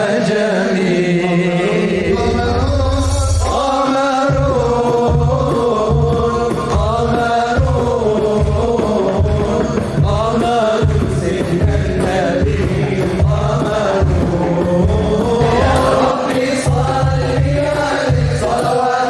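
Male voices singing an Arabic devotional song (nasheed) praising the Prophet, in chant-like unison lines, backed by a low pulsing beat from about four seconds in.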